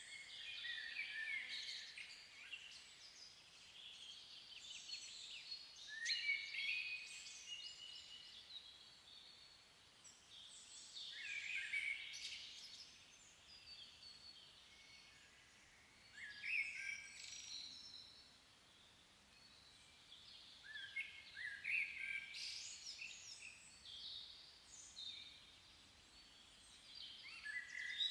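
A songbird singing, repeating a short chirping phrase of about two seconds roughly every five seconds, six phrases in all, over faint outdoor background.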